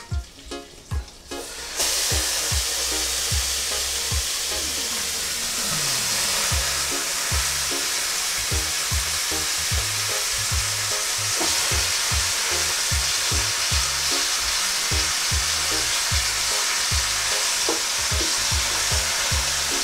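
Pieces of barracuda head sizzling loudly in hot melted butter in a pot. The sizzle starts suddenly about two seconds in as the fish goes in, then holds steady. Background music with a steady beat runs underneath.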